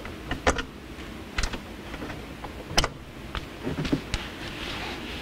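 Scattered sharp clicks and knocks of hands working at a hot tub's control box, pulling plastic sensor connectors and handling parts. There is one louder knock partway through and a brief scraping rustle near the end.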